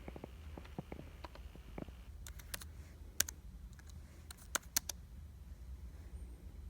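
Typing on a small Bluetooth tablet keyboard: irregular light key clicks, with a few sharper taps in the middle.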